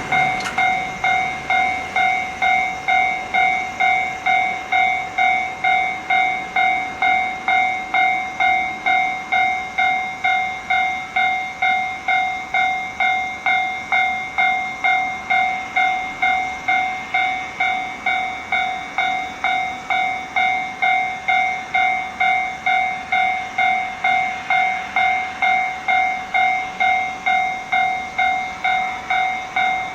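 Japanese railway level crossing warning bell ringing its "kan-kan" alarm: an even, repeating ding of about two strikes a second that keeps going without change, the signal that a train is approaching.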